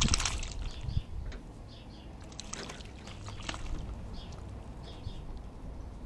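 Eurasian magpie bathing in a shallow tray bird bath, beating its wings and body in the water and splashing. The biggest splash comes at the start, followed by more bouts of splashing, with faint small-bird chirps in the background.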